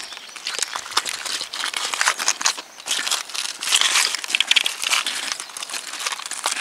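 Footsteps crunching over dry river cobbles and gravel: an irregular run of stony crunches and clicks.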